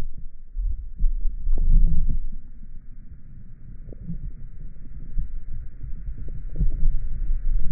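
Muffled underwater rumble with scattered soft knocks, picked up by a GoPro Hero 5 Session lying submerged among Orbeez water beads, with a faint steady hiss above it. The rumble swells loudest around two seconds in and again near the end.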